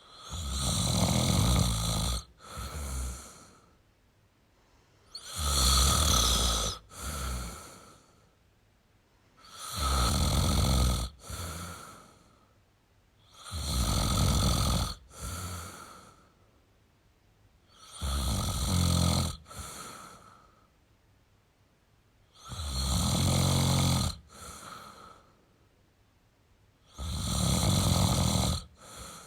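A man snoring in slow, regular breaths: seven snores, one every four to five seconds, each a loud rumbling snore of about two seconds followed by a shorter, softer breath out.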